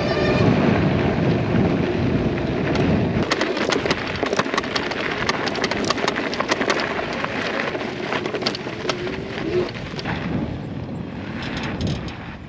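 Off-road riding on a dirt trail: wind rumbles on the microphone for the first few seconds. After that comes a dense run of crackles and clicks, typical of tyres over gravel and loose dirt, which eases off near the end.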